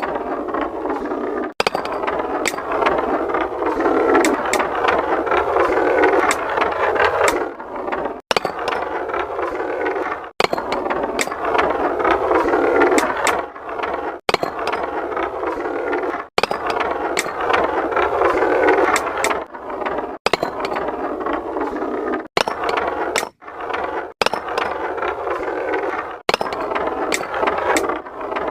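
Marbles rolling along a marble run track: a steady rolling rumble with frequent sharp clicks as the balls knock against the track pieces. It breaks off abruptly for an instant every two seconds or so.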